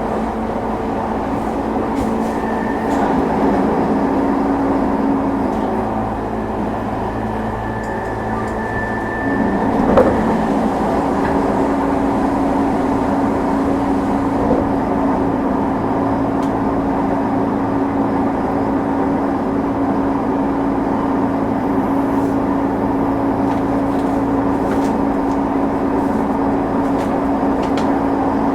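Running noise inside a JR E233-2000 series electric train motor car at speed: steady rumble of wheels on rail with a sustained groaning hum, the abnormal noise this car makes at medium to high speed. A single knock about ten seconds in.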